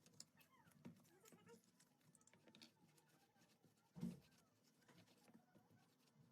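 Near silence with faint scattered clicks and one soft thump about four seconds in.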